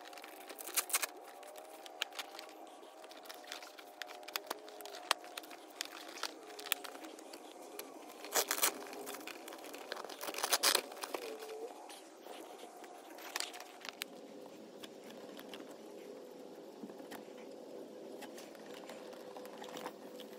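Crinkling and rustling of a lawn sweeper hopper's fabric cover being handled over its metal rod frame, with scattered clicks and a few louder rips of Velcro straps being fastened near the middle.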